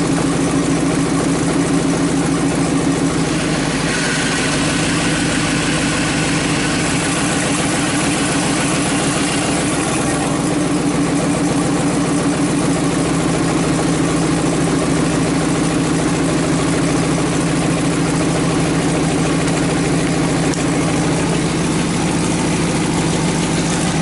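2003 Dodge Ram 2500's 5.7 Hemi V8 idling steadily while the steering is turned to press the front hub bearing out of the knuckle with the power steering, with a higher hiss and faint whine joining from about four to ten seconds in.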